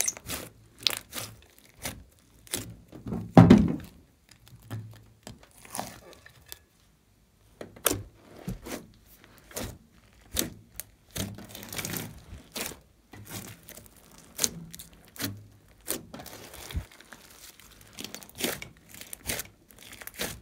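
Hands kneading, poking and squeezing a large mass of glossy slime in a glass tray: a string of sticky clicks, pops and squelches, the loudest about three and a half seconds in, with a brief pause around seven seconds in.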